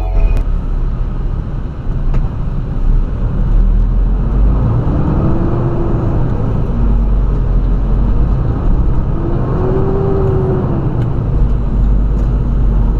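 Steady engine and road rumble of a vehicle on the move, with a faint tone that rises and falls in pitch twice, about five and ten seconds in.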